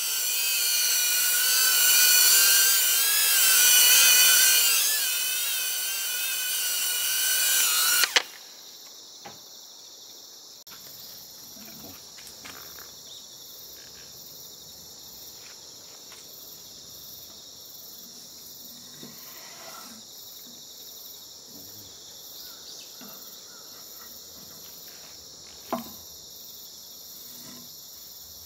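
A small quadcopter drone hovering close by, its propellers whining with a wavering pitch, cut off suddenly about eight seconds in. After that a steady high insect chorus carries on, with a few faint knocks.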